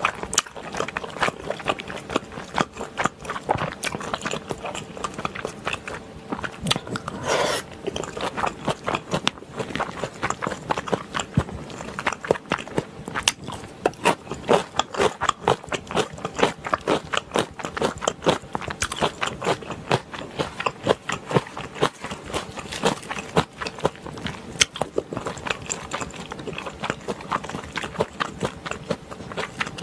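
Close-miked wet chewing and mouth smacking, a steady run of irregular clicks, as spicy stir-fried beef intestines (gopchang) with chewy Chinese glass noodles and rice cakes are eaten.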